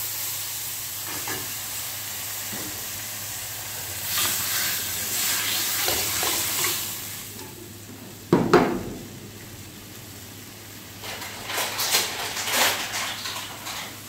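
Sauce and water sizzling in a hot wok over a gas burner, swelling into louder bursts of sizzling twice as the mixture is stirred. About eight seconds in, a single sharp clank of a metal utensil striking the wok.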